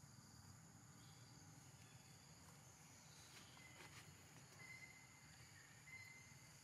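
Near silence: faint, steady insect chirring from the surrounding forest, with a few short, thin high notes in the second half.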